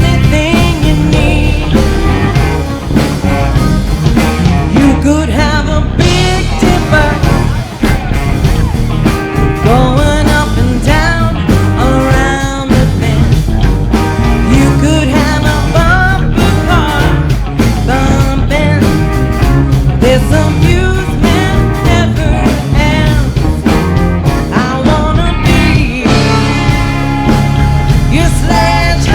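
Live rock band playing, with drums, bass and guitar under a sung lead voice.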